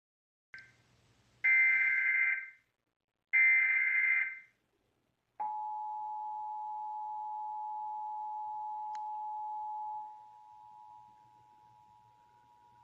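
Emergency Alert System test signal. First come the SAME data header bursts: a faint one, then two loud screeching bursts of about a second each, built on two high tones. About five seconds in, the steady two-tone EAS attention signal (853 and 960 Hz) starts. It drops much quieter about ten seconds in and continues faintly.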